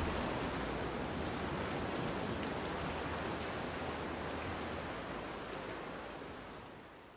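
A steady rushing noise, like a wash of water, holding even and then fading out over the last two seconds.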